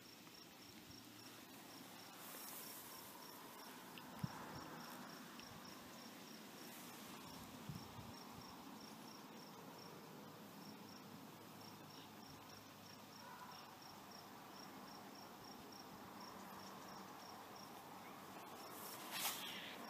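Faint, steady cricket chirping at about three chirps a second, with a couple of soft knocks and a brief rustle near the end.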